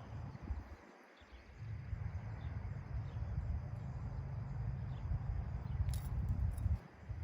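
Wind buffeting the microphone outdoors: a gusty low rumble that cuts out briefly about a second in and again near the end.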